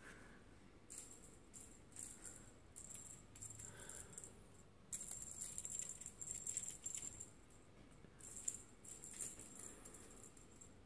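Cat claws raking a scratch board in quick, irregular bouts of dry, high scratching, the longest run lasting a couple of seconds about five seconds in.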